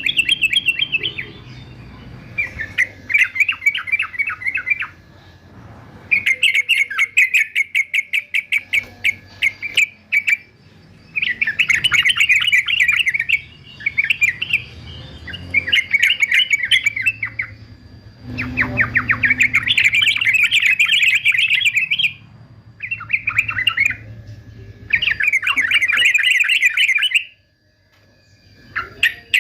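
Male yellow-vented bulbul (trucukan) singing loud, rapid chattering phrases, one to two seconds each, repeated about ten times with short pauses between them. This is the aggressive 'fighter' song that keepers play to train a caged bird to sing.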